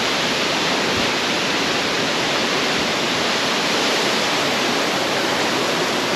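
Tall waterfall falling onto rocks close by: a steady, dense rush of water.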